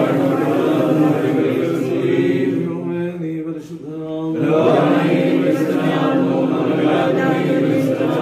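Men's voices of Orthodox clergy chanting a liturgical prayer, the chant easing off briefly about halfway through and then resuming at full strength.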